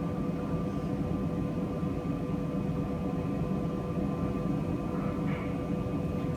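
Steady rushing of R-134a refrigerant jetting from a hose into an open flame, without igniting: the gas is non-flammable.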